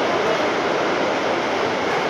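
Heavy rain pouring down on the roof overhead: a steady, dense rushing noise with no breaks.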